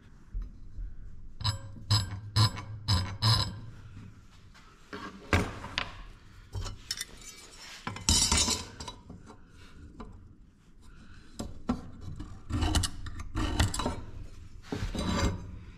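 A steel scribe and a metal speed square clinking and tapping against a flat steel bar, with scratching as lines are scribed into the steel. A quick run of light clinks comes about two seconds in, a longer scrape around eight seconds, and more clinks and knocks near the end.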